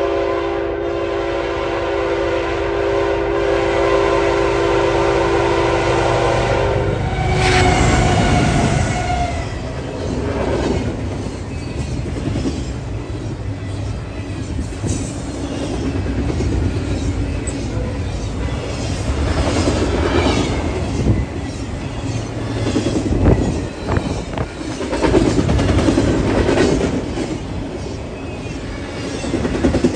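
A CSX locomotive's air horn blows one long steady chord for the grade crossing and cuts off about seven seconds in. The locomotive and a string of double-stack container well cars then roll past close by, their wheels clicking and clattering on the track.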